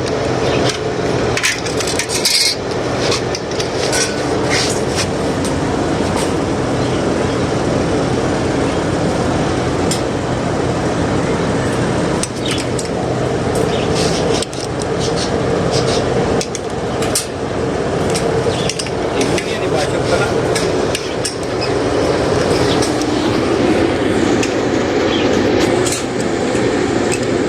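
Irregular metal taps and clinks of hand tools working on an electric water pump motor's parts, over a steady low hum.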